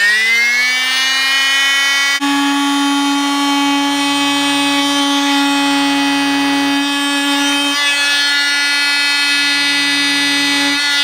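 Rockwell SoniCrafter oscillating multi-tool cutting through dash plastic: a rising whine as it spins up in the first second, then a steady high-pitched buzz, stopping suddenly at the end.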